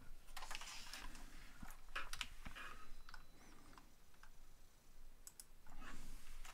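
A few faint, irregular key presses and clicks on a Logitech computer keyboard.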